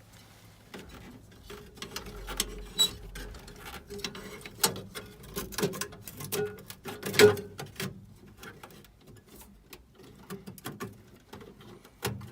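Irregular clicks, scrapes and knocks of hands handling a metal electrical-box lid and tools, with one sharper knock about seven seconds in, over a faint steady hum.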